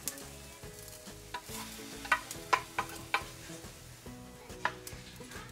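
Wooden spatula scraping hot fried shirataki noodles out of a frying pan into a saucepan of sauce, with several sharp knocks of wood against the pan and a light sizzle from the hot pan.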